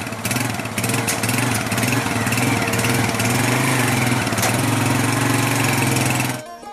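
Small motorcycle engine running at idle, loud and steady with a slightly wavering pitch. It comes in abruptly at the start and cuts off shortly before the end.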